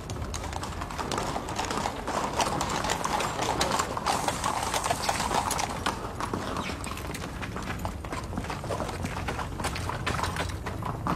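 Hooves of several horses clip-clopping on paving as horsemen and horse-drawn chariots pass, a fast stream of overlapping clops over a steady rolling rumble that is strongest in the first half.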